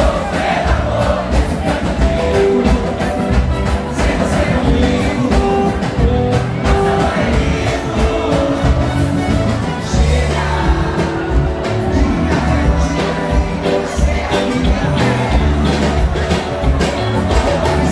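Live band music with a singer, loud and continuous, over a heavy bass.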